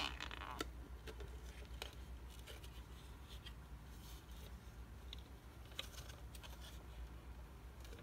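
Clear plastic dust bin and mesh filter of a cordless vacuum being handled and fitted together: scattered light plastic clicks and scrapes, with a brief scrape right at the start, over a low steady hum.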